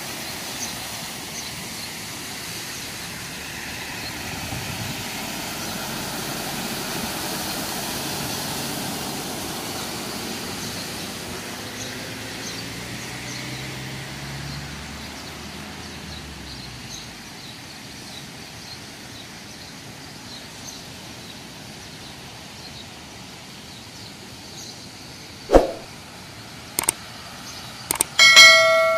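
Car tyres running through flood water on a road: a steady wash of splashing and road noise that swells for several seconds as a car passes, then fades. Near the end come a few sharp clicks and a short chime from a subscribe-button sound effect.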